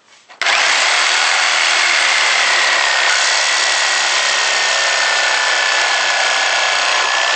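Reciprocating saw (Sawzall) with a metal-cutting blade starting about half a second in and running steadily, with a thin whine, as it cuts through the screw holding a deck board to the joist below.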